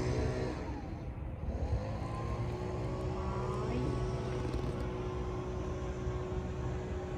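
Motor vehicle going by on the road, its engine note falling in pitch as it passes, over a steady low traffic rumble and engine hum.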